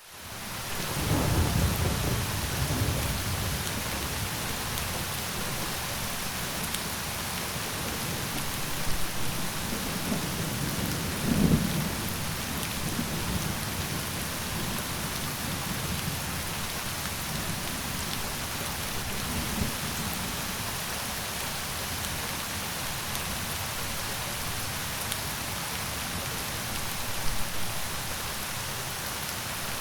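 Steady rain hiss fading in at the start, with low rumbles of thunder rolling in about a second in and again, strongest, around eleven seconds.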